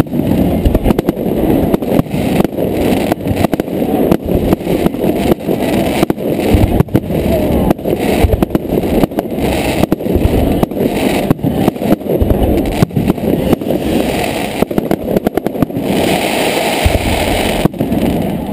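Aerial fireworks display: a rapid, almost unbroken barrage of bangs and booms, several each second, dull and bassy in tone.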